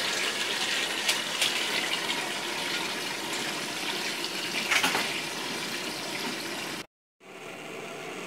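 Kitchen tap running into a stainless steel cooking pot, filling it with water, with a few light knocks of the pot. Near the end the sound cuts off abruptly and comes back as a quieter steady hiss.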